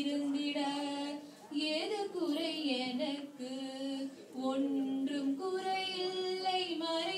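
A woman and a young girl singing together without words spoken, holding long notes that bend and slide in pitch.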